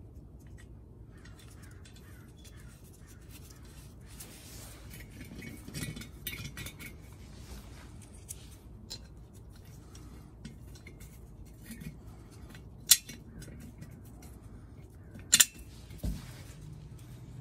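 A steel exhaust flange adapter being handled and fitted against a catalytic converter's outlet flange: scattered light metal clinks and scrapes, with two sharp, loud clinks near the end.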